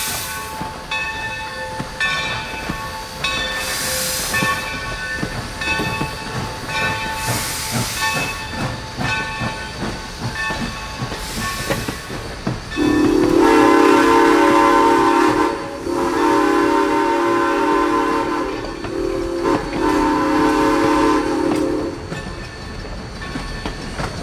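Chinese-built steam locomotive No. 3025 leaving with its train: a bell rings steadily and bursts of steam hiss come a few seconds apart. About halfway through, the steam whistle sounds long, long, short, long, the grade-crossing signal, and these are the loudest sounds.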